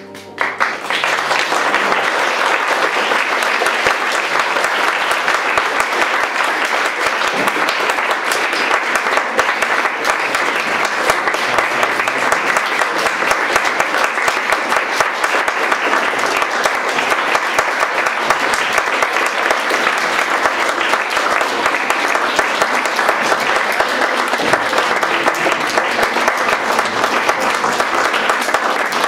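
Audience applauding: the clapping breaks out about half a second in, as the closing music cuts off, and goes on steadily and densely.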